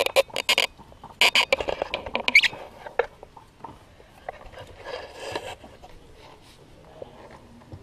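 Hands screwing an oil filter onto its mount under a car engine: quick scraping and clicking in the first two and a half seconds, a single click at about three seconds, then a softer rustle about five seconds in.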